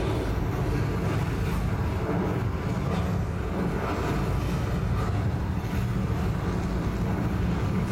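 Steady, deep rumble of a rocket liftoff played through an immersive show's loudspeakers.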